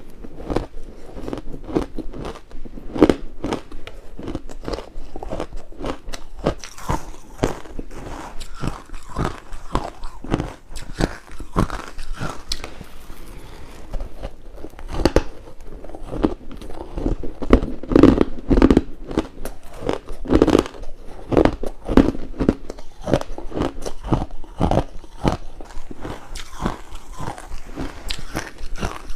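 A person biting and chewing crunchy ice: a continuous, irregular run of crisp cracks and crunches, several a second.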